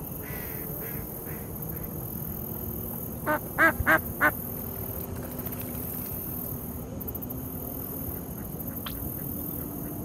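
Mallard duck quacking: four short, loud quacks in quick succession, a little over three seconds in.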